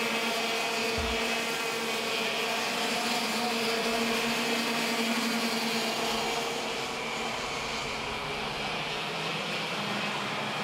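Racing go-kart engines running at speed as a pack of karts laps the circuit, a steady drone that eases slightly after about seven seconds.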